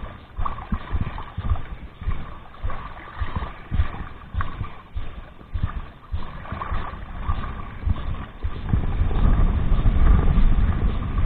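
Small waves lapping and sloshing at the waterline in uneven pulses, with a heavier low rumble of wind on the microphone building in the last few seconds.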